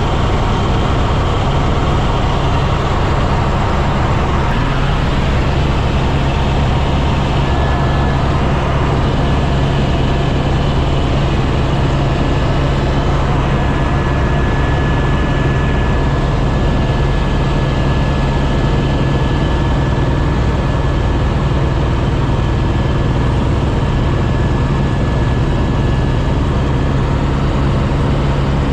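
Helicopter in flight: a steady, loud drone of engine and rotor, with a thin high whine that comes and goes partway through.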